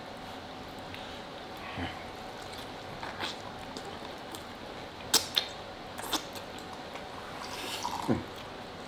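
Eating noises from people chewing their food: a few soft mouth sounds and two sharp clicks a little past halfway, over a faint steady hum.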